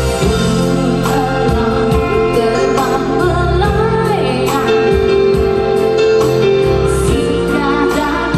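A woman singing a slow song into a microphone over electronic keyboard accompaniment that holds long sustained chords.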